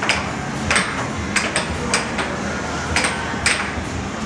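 Air hockey rally on a Dynamo Fire Storm table: the plastic puck and mallets strike each other and the rails in a string of sharp clacks at an uneven pace, about every half second, over a steady low hum.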